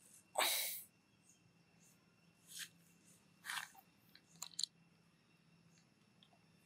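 A young pig-tailed macaque chewing and crunching peanuts: short crisp crunches about two and a half, three and a half and four and a half seconds in. A louder scratchy burst comes about half a second in.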